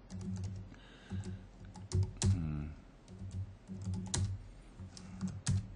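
Typing on a computer keyboard: a quick, uneven run of key clicks.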